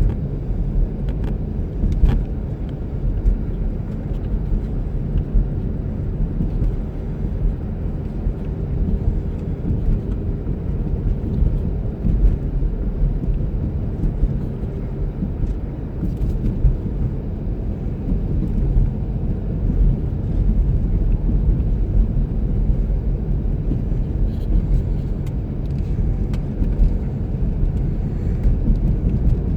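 Blizzard wind blowing against the microphone: a steady low rumble that rises and falls with the gusts.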